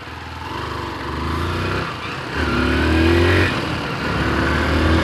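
Motorcycle engine accelerating while riding, its note dipping briefly twice, about two seconds and three and a half seconds in, then picking up again, louder each time.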